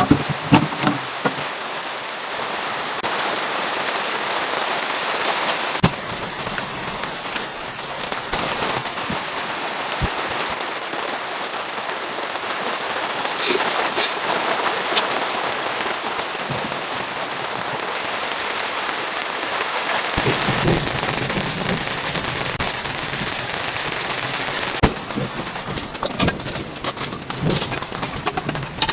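Steady rain falling, with scattered sharp taps and crackles from drops striking a surface.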